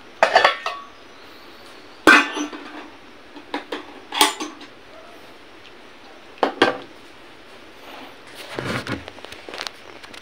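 Clattering and clinking of dishes and utensils being handled, about half a dozen separate knocks spread over several seconds, over a steady background hiss.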